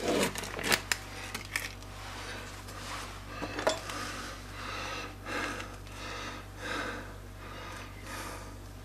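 Metal spoon clinking and scraping against a steel pot and a plastic tub as soft processed cheese is scooped out into thick soup: a few sharp clinks in the first couple of seconds, then softer scraping strokes.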